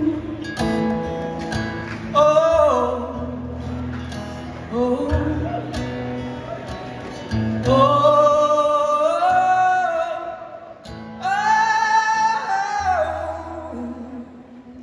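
A man singing long, held phrases over his own strummed acoustic guitar in a solo live performance. The sound fades near the end.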